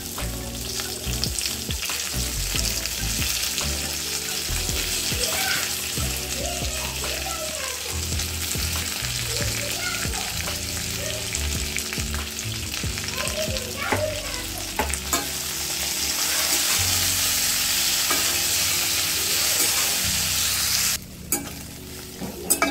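Fresh curry leaves, shallots and dal sizzling in hot oil in a stainless steel kadai while being sautéed, with small clicks of a steel fork stirring against the pan. The sizzle grows louder about two-thirds of the way through, then drops off sharply near the end.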